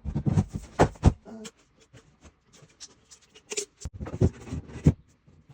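Irregular knocks and thuds of work on a wooden staircase, in two clusters: a burst of blows at the start and another about three and a half seconds in.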